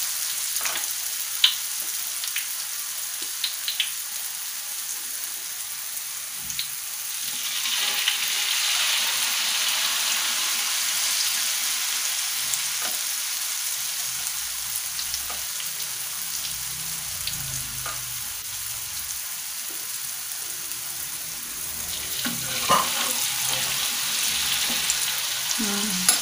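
Rice-flour and peanut rempeyek batter deep-frying in hot oil in a wok: a steady sizzling hiss dotted with sharp pops. The sizzle swells about seven or eight seconds in and eases off again a few seconds later.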